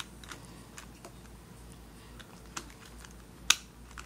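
Plastic pieces of a Fangshi Shuangren 54.6 mm 3x3 speedcube clicking as the taken-apart cube is fitted back together by hand: scattered light clicks, with one sharp snap about three and a half seconds in.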